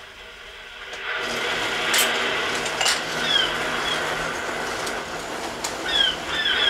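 Three-rail model train running along the track: a steady rolling rumble that swells about a second in, with a few sharp clicks and some short high falling squeaks in the second half.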